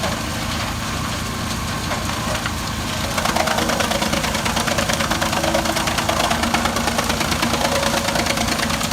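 Wood chipper running with its engine at a steady speed, a fast rhythmic chatter; it gets louder about three seconds in.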